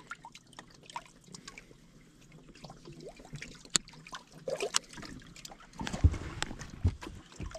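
Water trickling and dripping, with scattered small clicks from handling the fish and the scale's clip. A few dull low knocks come near the end.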